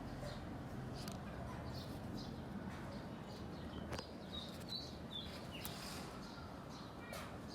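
Short, high chirps now and then over a steady low outdoor rumble, with a few sharp clicks.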